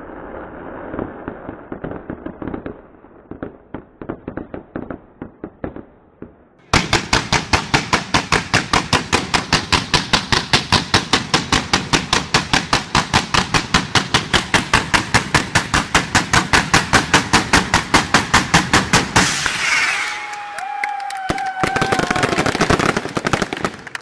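Fireworks display: crackling and scattered pops. About seven seconds in, a rapid, evenly spaced barrage of bangs starts, about five a second, and runs for some twelve seconds. It is followed by a drawn-out falling whistle and more crackling.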